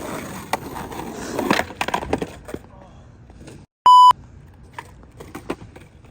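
Skateboard clatter, with wheels rolling and several sharp knocks of the board. A little past halfway a loud, short electronic bleep cuts in for about a third of a second after a brief dropout.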